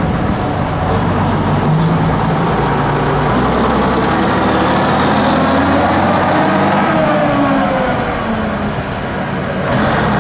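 Leyland Atlantean double-decker bus's diesel engine pulling away past, its engine note sliding down in pitch about two-thirds of the way through.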